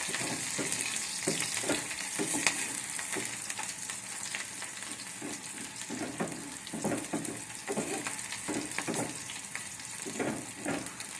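Onions sizzling as they fry in hot oil in a pan, with a spoon stirring them in short scraping strokes about every half second.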